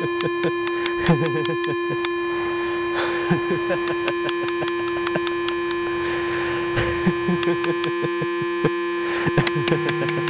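A steady electronic drone of several held tones, with irregular sharp clicks and short squeaky chirps scattered over it.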